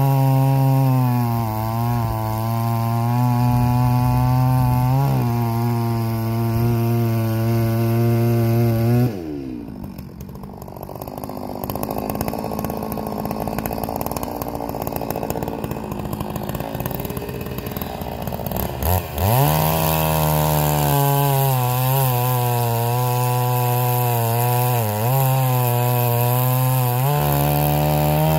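G660 chainsaw, a large two-stroke clone of the Stihl MS660, running at full throttle cutting through logs, its pitch dipping briefly as the chain bites. About nine seconds in it drops suddenly to idle for some ten seconds, then revs back up and cuts again steadily.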